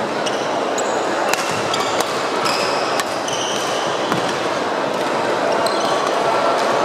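Badminton rally: several sharp cracks of rackets hitting the shuttlecock and short squeaks of court shoes on the wooden floor, over a steady din from the busy hall.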